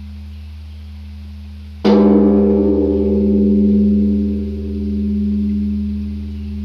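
Large bronze Korean Buddhist temple bell struck once with a swung wooden log, about two seconds in, while the low hum of the previous stroke is still dying away. The bell then rings on in several deep tones, swelling and fading in a slow pulse.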